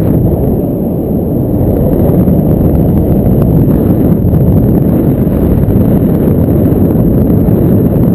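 Wind noise from the airflow of paragliding flight buffeting an action camera's microphone: a loud, steady, low rumble.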